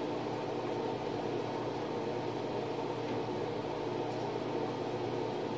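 A steady mechanical hum with several droning tones, unchanging throughout.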